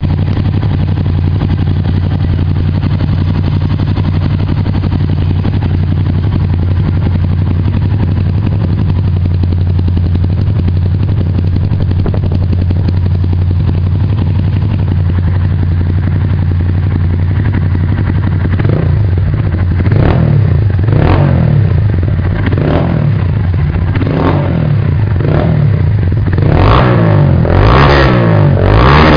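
Honda CG 150 Fan's single-cylinder four-stroke engine with an aluminium exhaust, idling steadily, then revved with repeated throttle blips, each rising and falling back, from about two-thirds of the way in. Near the end the blips come faster and harder and the sound gets louder.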